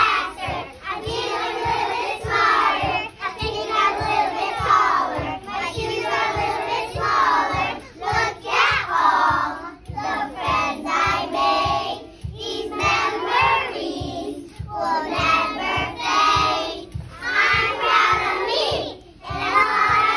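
A group of young children singing along to a recorded song with a steady beat.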